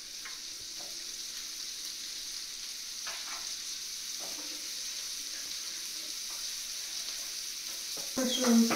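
Sliced mushrooms and onions sizzling in butter in a nonstick frying pan, a steady hiss with a few light scrapes of a wooden spatula stirring them.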